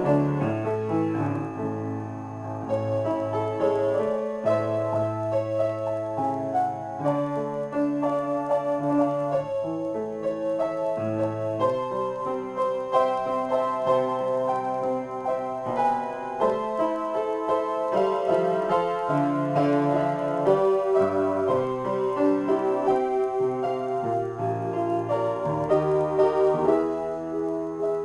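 Solo piano played in a free improvisation: sustained chords over low bass notes that change every second or two.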